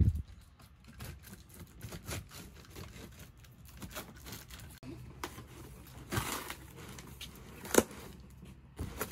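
A large cardboard box being cut open with a small blade and its side panel pulled apart: scattered scraping, rustling and tearing of cardboard, with a thump at the start and a sharp knock near the end.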